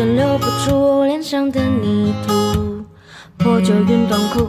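Background music led by a strummed acoustic guitar, with a gliding melody line over it. It drops away briefly about three seconds in and then comes back.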